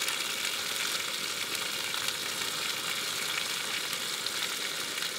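A steak frying, a steady sizzle with small crackles.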